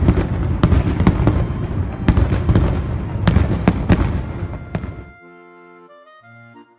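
Fireworks going off: a dense, loud run of booms and crackling pops that starts abruptly and cuts off suddenly after about five seconds, followed by light background music.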